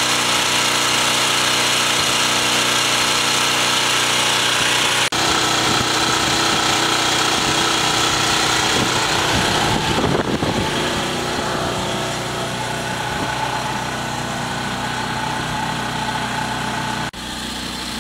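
Small portable gas generator engine running at a steady speed, with abrupt cuts about five seconds in and near the end where the sound jumps.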